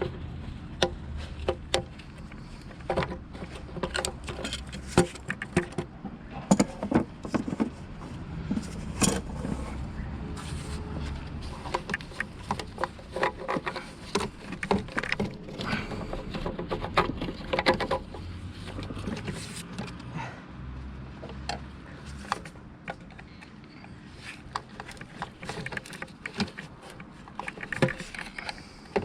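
Irregular clicks and knocks of hand tools and metal parts being handled on a car engine, over a low steady hum.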